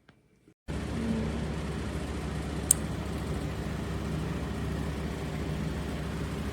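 A steady low rumble and hiss with a faint hum, starting abruptly under a second in, with one sharp click a couple of seconds later.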